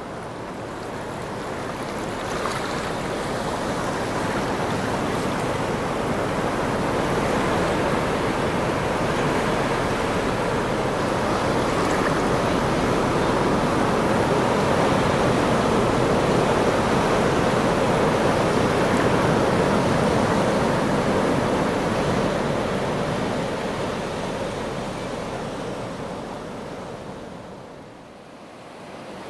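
Ocean surf breaking on a rocky shore, a steady rush of waves with no distinct single crashes. It swells up over the first few seconds and dips briefly near the end.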